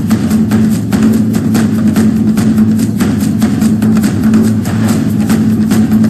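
Background music with a steady drum and percussion beat over a low sustained tone.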